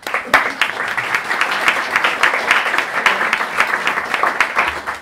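Audience applauding: many hands clapping together, starting abruptly.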